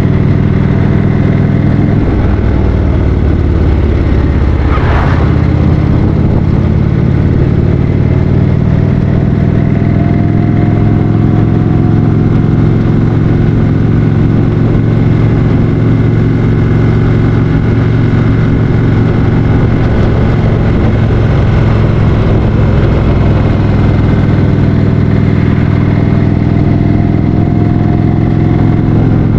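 2015 Indian Roadmaster's Thunder Stroke 111 air-cooled V-twin running steadily while riding at road speed, with road noise. A brief burst of rushing noise about five seconds in; the engine note rises slightly around ten seconds in and again near the end.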